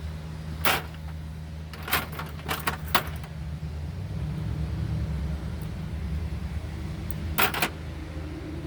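Sharp metallic clicks and clacks of tools or small parts being handled: one about a second in, a quick cluster around two to three seconds, and a double click near the end. A steady low hum runs beneath them.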